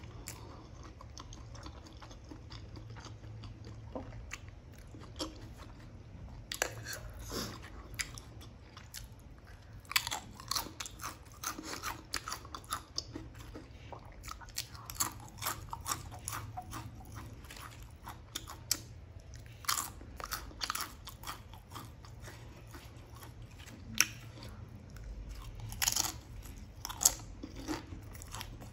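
Close-miked soft chewing, then from about six seconds in, crisp crackling crunches of Pringles potato chips being bitten and chewed.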